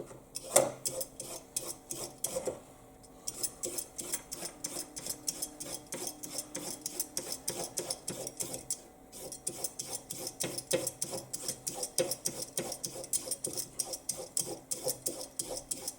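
Vegetable peeler scraping down a carrot in quick repeated strokes, shaving off thin strips: a rhythmic rasping of several strokes a second, with brief pauses about two and a half seconds in and again about nine seconds in.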